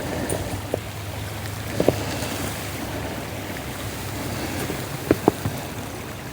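Blizzard wind rushing over the microphone, with a few footsteps in snow about two seconds in and twice a little after five seconds.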